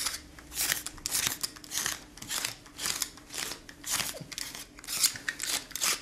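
Brand-new Stanley knife blade slashed rapidly again and again across a shirt worn over slash-resistant fabric: a quick scraping stroke about two or three times a second. The blade slits the outer shirt while the cut-resistant layer beneath holds.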